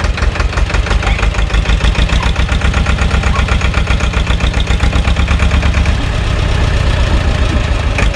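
Diesel engine of a small SAME tractor running at low revs, ticking over with a steady, regular firing beat, easing slightly about six seconds in.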